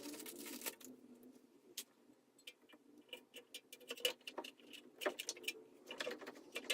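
Faint, irregular light clicks and metallic ticks of hand tools and small parts being handled during brake work.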